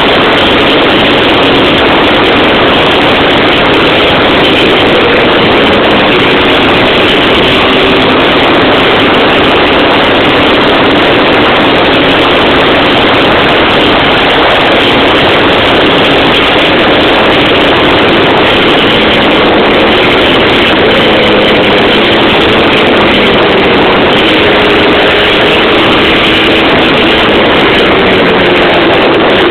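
Yamaha Blaster 200 ATV's two-stroke single-cylinder engine running at speed through a Toomey Racing expansion-chamber exhaust. It is loud and held at a fairly steady pitch, edging up slightly in the last several seconds, under a thick rushing noise.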